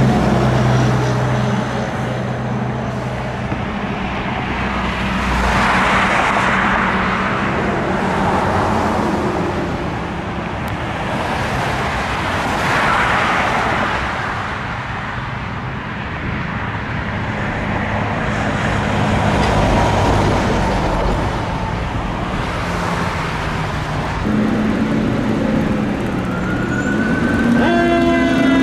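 Fire truck diesel engines with tyre and road noise as heavy ladder trucks drive by, swelling and fading several times over a low steady engine hum. Near the end an electronic siren starts up with a rising wail.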